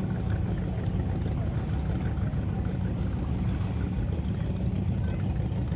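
Motorboat under way, a steady low rumble.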